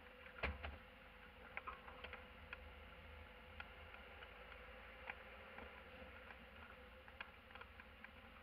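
Faint, muffled van cab noise while driving: a steady low rumble and hum from the engine and road, with scattered small clicks and rattles from the cab. The loudest is a knock about half a second in.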